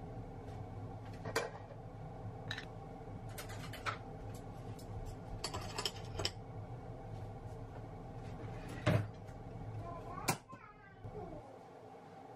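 Tableware being handled at a counter: a series of light clicks and clinks as a glass mustard jar, a fork and knife, and a ceramic plate knock together. The loudest knock comes about nine seconds in.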